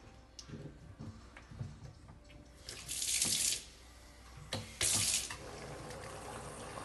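Water from a garden hose running into a water punch bag through its filler opening: a few light knocks at first, then two loud hissing spurts about three and five seconds in, followed by a steady rush of water.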